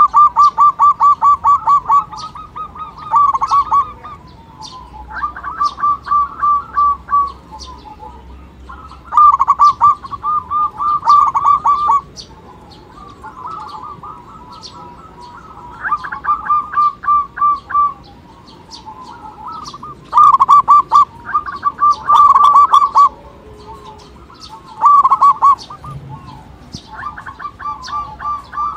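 Zebra dove (local perkutut) cooing: phrases of rapid pulsed notes, each one to three seconds long, repeated every few seconds.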